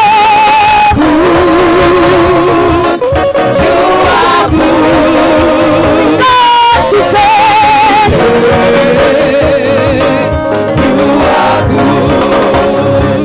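Live gospel worship music: singers holding long notes with a strong vibrato over a full band accompaniment.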